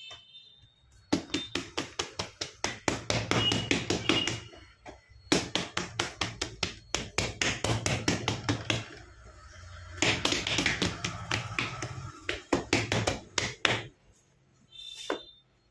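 Hands rapidly patting and pressing a folded slab of layered puff pastry dough flat on a floured stone worktable: quick taps, several a second, in three runs of a few seconds each. This is the pressing-out of the dough during the dry fold that comes after the dalda fold in laminating the pastry.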